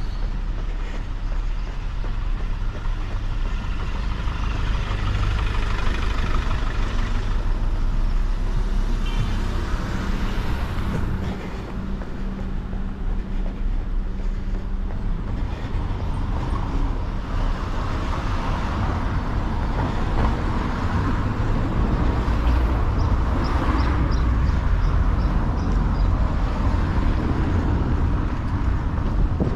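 Road traffic on a city street: cars and heavier vehicles such as buses or trucks going past, over a constant low rumble that swells and eases.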